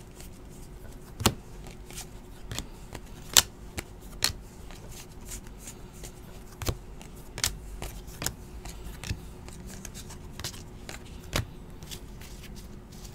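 2017-18 Donruss basketball cards being sorted by hand: irregular clicks, snaps and slaps as the cards are flicked through and set down onto piles, with a faint steady hum underneath.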